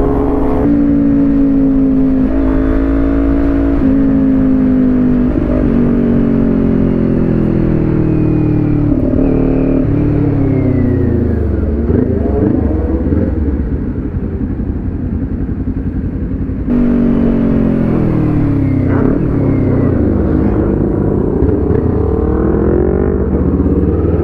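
Kawasaki Ninja 400's parallel-twin engine under way. Its pitch climbs and breaks at several quick gear changes in the first six seconds, falls as the bike slows about halfway through, then rises again as it pulls away.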